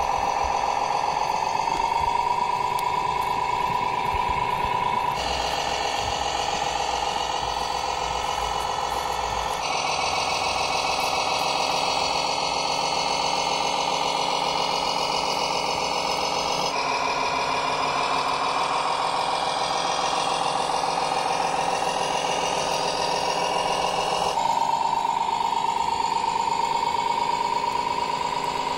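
Radio-controlled model trucks running: a steady engine-like drone with a high whine that rises in pitch a couple of times. The sound changes abruptly every few seconds.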